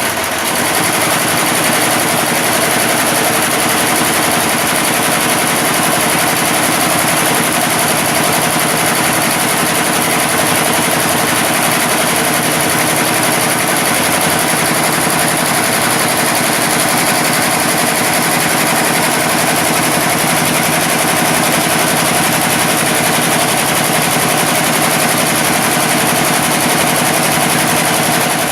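Computerized embroidery machine stitching, a steady rapid mechanical rattle of needle strokes.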